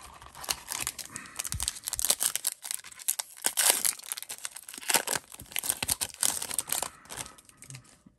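A trading card pack's wrapper being torn open and crinkled by hand, a long run of sharp crackling.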